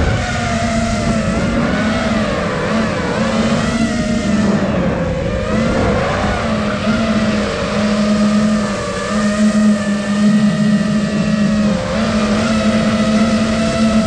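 Motors and propellers of a 5-inch freestyle FPV quadcopter in flight, a whine of several tones at once wavering up and down as the throttle changes.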